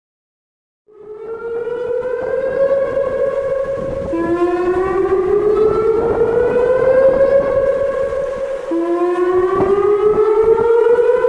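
Whelen WPS-2906 electronic outdoor warning siren sounding its whoop tone for a severe thunderstorm warning. It cuts in about a second in, then makes three slow rising sweeps, each climbing to a steady top note near 560 Hz before dropping back low and rising again.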